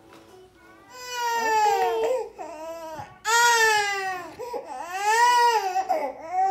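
Infant crying: a first wail about a second in, then a longer, louder wail from about three seconds in that runs almost to the end.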